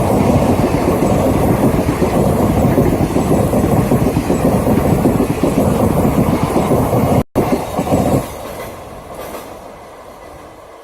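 Indian Railways train running on the track, its wheels clattering over the rails in a loud, dense rumble. The sound cuts out for an instant about seven seconds in, comes back, then falls away and fades over the last couple of seconds.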